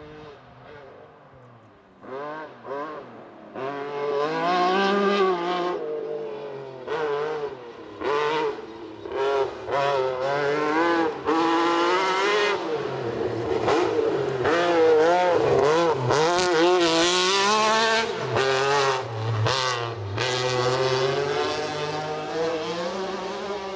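Rally car engine driven hard on a stage. The pitch climbs and drops over and over with throttle lifts and gear changes, growing from faint to loud as the car comes closer.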